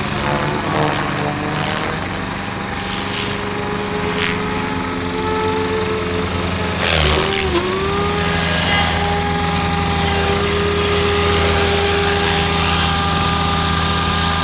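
SAB Goblin 700 electric RC helicopter flying 3D aerobatics: a steady motor and gear whine over the rotor's drone, with rotor whooshes as it manoeuvres. About seven seconds in the pitch dips sharply and swoops back as the blades load up in a hard manoeuvre.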